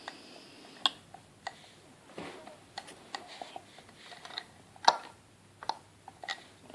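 Lock pick clicking and scraping on the pins of a Brinks 70mm padlock under tension, a string of irregular sharp ticks with the loudest about five seconds in. The lock is held in a false set while the pins are worked.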